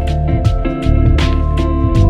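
Instrumental smooth jazz background music: a bass line under held chords, with regular drum and cymbal hits.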